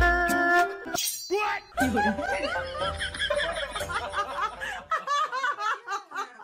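Music stops about a second in; then several people laugh together, thinning near the end to one person's short, repeated laughs.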